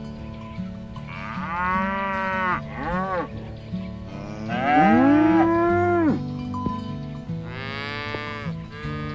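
Cows mooing, four calls in turn, each rising and then falling in pitch, the loudest about five seconds in. Background music with a low stepping melody runs underneath.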